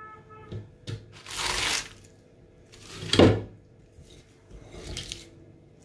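Fresh spinach leaves rustling as handfuls are lifted off a plate and dropped into a plastic blender jar, in three spells, the loudest and sharpest about three seconds in.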